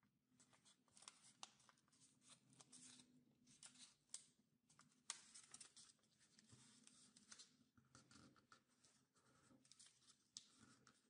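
Faint crinkling and rustling of origami paper being folded and creased by hand, a steady run of small crackles with a sharper one about five seconds in.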